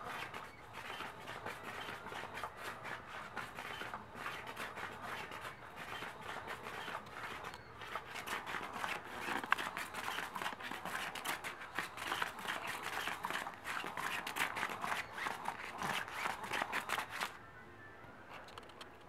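Cat's Meow motorized cat toy running, its wand rattling and scraping under the fabric skirt in a rapid, dense clicking. It cuts off suddenly near the end, leaving only a faint ticking.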